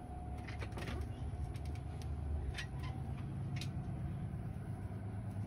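Glass storm door's latch clicking and the door being pulled open, a few sharp clicks over a steady low rumble.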